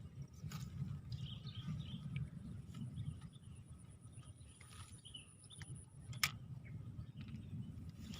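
Small birds chirping now and then over a steady low rumble, with a thin steady high tone behind them and a single sharp click about six seconds in.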